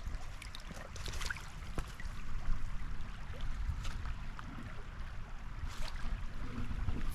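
River water trickling and splashing, with scattered small splashes, over a low wind rumble on the microphone.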